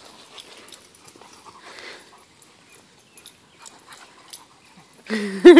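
Dogs romping on grass, with faint scuffling and breathing. Near the end comes a loud pitched vocal outburst that rises and breaks into quick short pulses.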